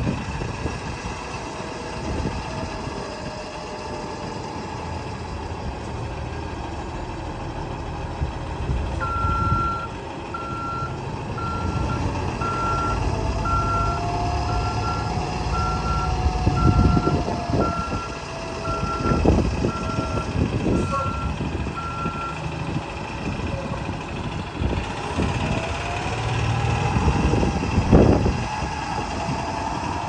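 2009 Blue Bird school bus engine running, with its backup alarm beeping about once a second for some thirteen seconds in the middle as the bus reverses. A faint whine rises and falls over the engine, and there are a few low thumps.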